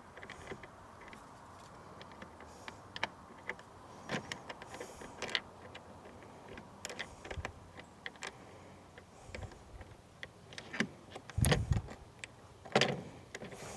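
Small plastic and metal mounting hardware being handled and fitted by hand: scattered light clicks and taps, with two louder knocks near the end.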